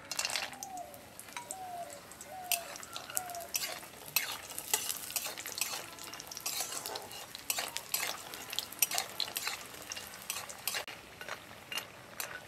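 Biuli dal bori (sun-dried lentil dumplings) frying in hot oil in a kadai, sizzling, while being stirred, with frequent sharp clicks and scrapes.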